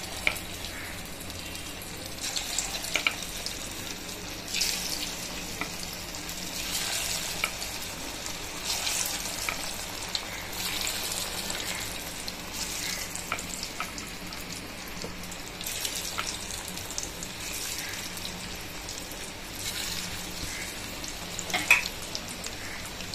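Batter-coated chicken pieces deep-frying in hot oil in an iron kadai: a steady sizzle with louder spells of crackling every couple of seconds as more pieces go into the oil.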